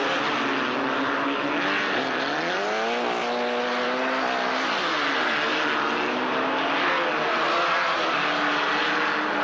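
Citroën AX Sport race cars' small four-cylinder engines at racing speed, over a steady rush of noise. The engine note climbs sharply about two seconds in, falls back near the middle, then holds steady.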